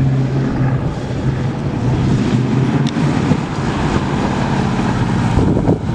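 1965 Ford Mustang's 289 cubic-inch four-barrel V8 running as the car drives past close by at low speed, a loud, steady engine note. Near the end there is some wind buffeting on the microphone.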